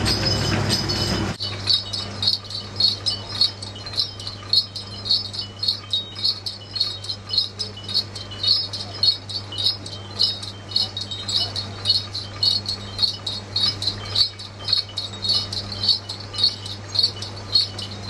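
Small bells on the turning roller shaft of a sugarcane juice machine jingling in a steady, even rhythm as the shaft rotates, over a low steady hum; street noise gives way to the bells about a second in.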